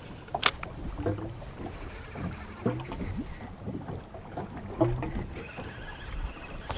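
Sounds aboard a drifting fishing boat: water lapping at the hull with scattered small knocks, and a sharp click about half a second in.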